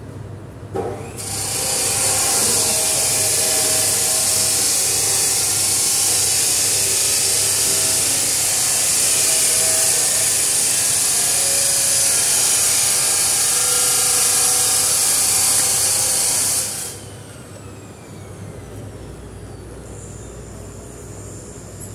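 Compressed air hissing loudly and steadily, with a faint wavering whine underneath. It starts about a second in, after a short knock, and cuts off suddenly a few seconds before the end. A low pulsing hum runs under it and carries on after.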